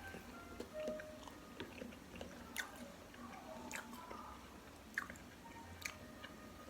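A person chewing and biting bakso meatballs and beef rib meat, with scattered short wet mouth clicks.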